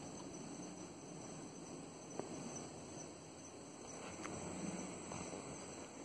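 Faint outdoor ambience: a steady high-pitched chirring of insects over a dull low rumble, with a couple of faint clicks.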